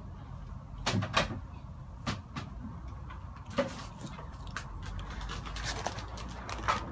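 Cats eating from bowls on a tiled floor: scattered irregular clicks and light knocks, with a couple of louder knocks about a second in and others midway and near the end.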